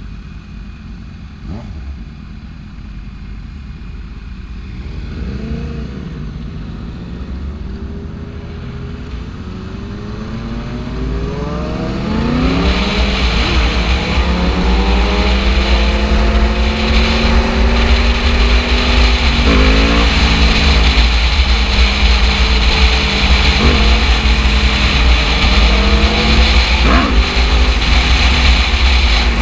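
Sport motorcycle engine pulling away and accelerating hard through the gears, its note climbing in pitch and dropping back at each upshift, three shifts in the second half. Heavy wind rush on the bike-mounted microphone grows loud as speed builds.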